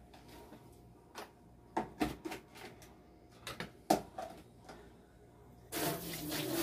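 Kitchen handling sounds: a string of light clicks and knocks from plastic containers, lids and meat being moved about while meat is salted, then about a second of rustling, hissing noise near the end.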